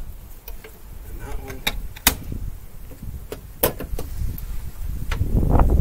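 A string of sharp metallic clicks and clacks as the covers of a weatherproof outlet box and a metal timer box are snapped and pulled open. Wind rumbles on the microphone near the end.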